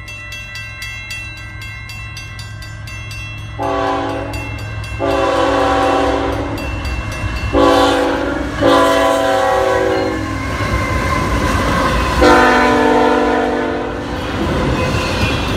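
Railroad grade-crossing bell ringing steadily as a CN freight train approaches. About four seconds in, the lead locomotive's multi-chime air horn sounds for the crossing: long, long, short, long, then one more long blast. Near the end the double-stack container cars roll past with steady wheel-on-rail noise.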